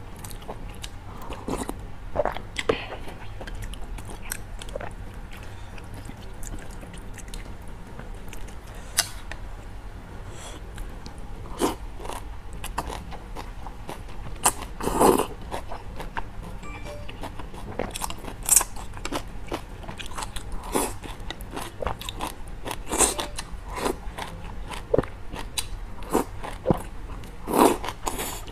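Close-miked eating of malatang, spicy soup with noodles and greens: chewing with the mouth full, many short wet mouth clicks, and a few louder slurps spread through.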